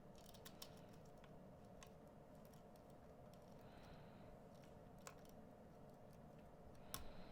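Near silence: faint scattered clicks of beads and cord being handled while macrame knots are tied, over a faint steady hum.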